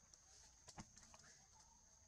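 Near silence: faint crackle of dry leaves as a baby monkey wriggles on its back in them, with two sharp clicks a little under a second in, over a steady high-pitched hum.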